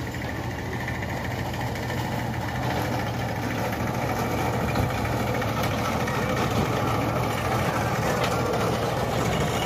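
Small engine of a monorail power car running steadily, getting louder as the train approaches along its beam track.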